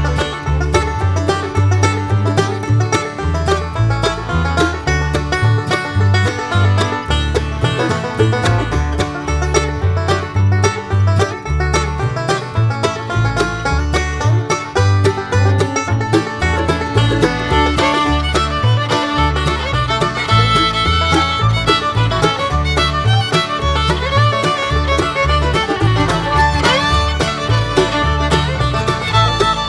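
Bluegrass music with banjo and fiddle over a steady bass beat.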